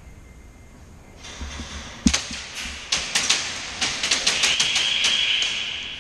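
Airsoft guns firing in a string of sharp, irregular pops and BB hits, starting about two seconds in. About halfway through a steady high-pitched sound joins in.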